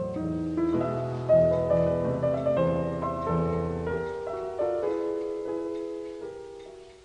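Solo piano playing a slow piece of separate struck notes that ring and die away. About four seconds in the bass drops out, and the softer upper notes fade.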